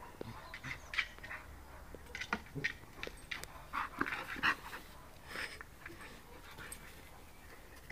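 A dog making short, irregular breathy noises as it plays, nosing and chasing a ball across grass.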